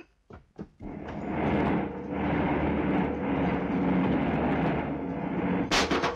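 Car engine running under load as a car drives fast, with road and tyre noise rising in about a second in and holding steady. A single sharp bang near the end.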